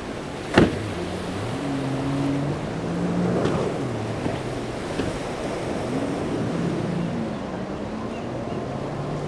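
Boat engines running, their pitch shifting up and down, over the wash of surf and wind buffeting the microphone. A single sharp knock about half a second in.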